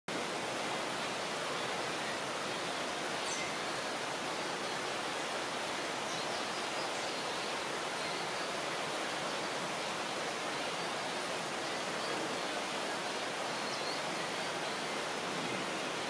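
Rainforest ambience: a steady, even hiss, with a few faint, short high chirps.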